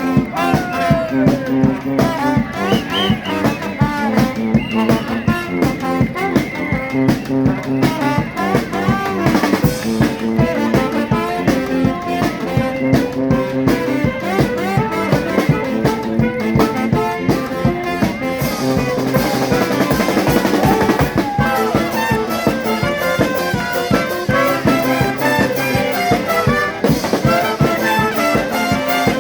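A charanga street band playing: trumpets and trombones carrying the tune over drums keeping a steady, driving beat.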